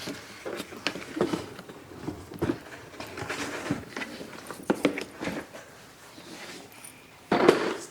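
Irregular light knocks and clicks from mopping gear being handled on a kitchen floor, with a louder knock and scrape near the end.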